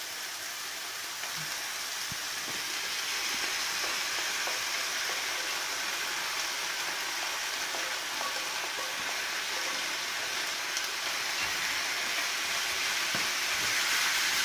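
Grated courgette and carrot frying in hot oil with browned onions in a frying pan: a steady sizzle that swells slightly toward the end, with a few faint clicks.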